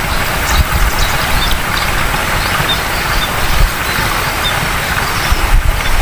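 Steady rushing outdoor noise with an uneven low rumble, and a few faint short high chirps scattered through it.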